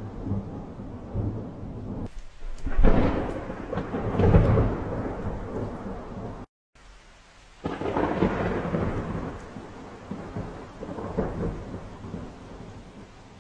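Thunderstorm: thunder rumbling over steady rain, with two long rolls, the first about two and a half seconds in and the second near eight seconds. Between them the sound cuts out completely for a split second.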